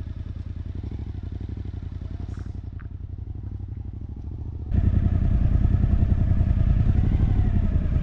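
A Suzuki V-Strom motorcycle engine running, with a steady stream of rapid firing pulses. About two-thirds of the way through, the sound suddenly becomes louder and fuller.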